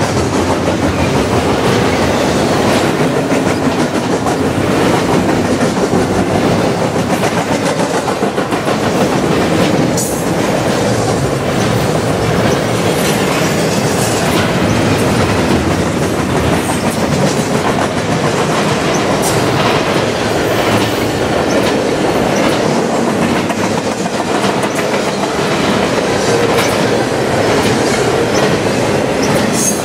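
Double-stack intermodal container train of well cars rolling past: a steady, loud rumble and clatter of steel wheels on the rails, with a few brief high wheel squeals now and then.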